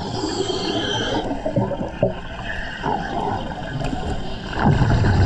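Underwater bubbling and gurgling from a dive, with a brief hiss in about the first second.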